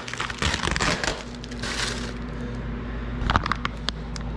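Clear plastic sheeting crinkling as it is handled for about two seconds, then a few separate crackles near the end, over a steady low hum.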